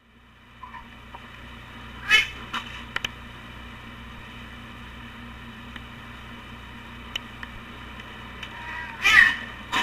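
Two house cats sparring, with two short loud cat cries, one about two seconds in and one near the end, and a few small clicks between, over the steady hum of a digital camera's built-in microphone.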